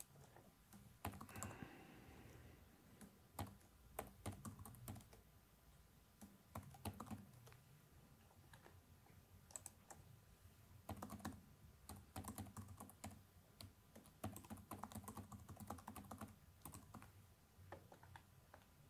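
Faint computer keyboard typing in short bursts of keystrokes, with pauses between the bursts.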